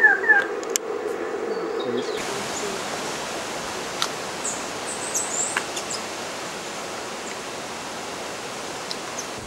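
Forest ambience with birds. A bird's run of falling whistled notes ends just after the start over a steady hum. After about two seconds there is a steady hiss, with a few high, thin bird chirps about five seconds in.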